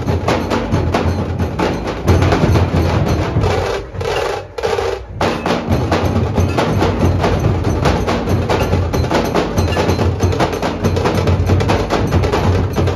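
Dhol-tasha ensemble playing: a group of large dhol barrel drums beating a fast, loud rhythm with tasha drums rattling over it. The drums break off about four seconds in and come back in together a second or so later.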